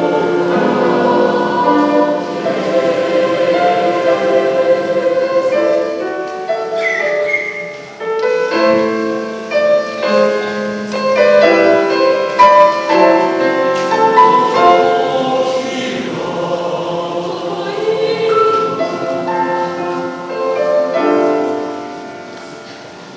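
Junior high school mixed choir singing in three-part harmony, its sustained phrases softening near the end.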